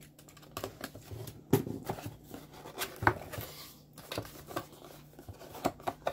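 Unboxing a small cardboard box: a utility knife slitting the seal, then the lid and a paper insert handled, giving irregular clicks, taps and rustles. Two sharper knocks stand out about a second and a half and three seconds in.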